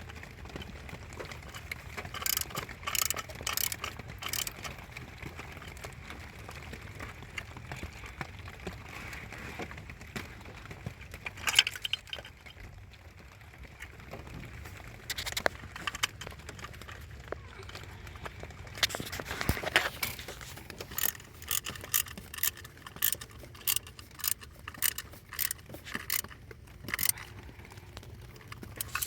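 Scattered light metallic clicks and rattles, coming in short clusters, as of small parts and hand tools being handled, over a low steady hum.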